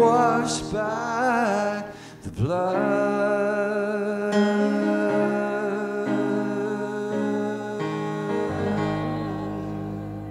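The ending of a worship song. A man's voice holds the last sung note with vibrato for about two seconds, then the band's final chord on keyboard and guitars sustains and slowly fades away.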